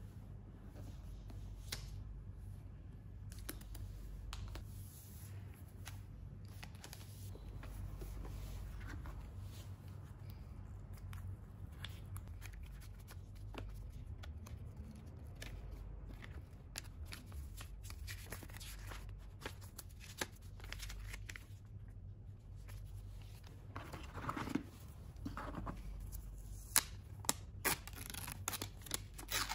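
Cardboard and paper packaging being handled: soft rustles, taps and small clicks over a steady low hum. In the last few seconds the rustling gets denser, with a few sharper clicks, as the protective wrap is peeled off a laptop power adapter.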